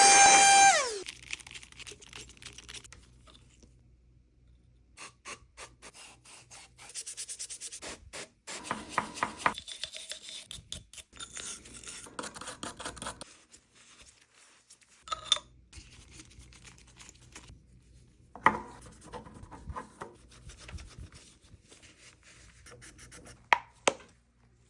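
Irregular scrubbing and rubbing strokes of nitro RC car parts being cleaned by hand, with short pauses between bouts. At the very start a loud horn-like tone slides down in pitch and cuts off within the first second.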